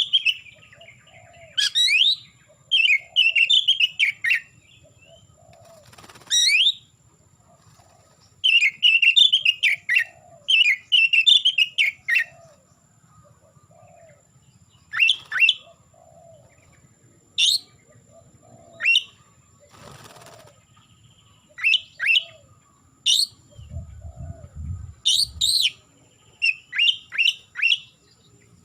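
Oriental magpie-robin (kacer) singing loudly in separate bursts: runs of fast repeated whistled notes and sharp descending whistles, with short pauses between phrases.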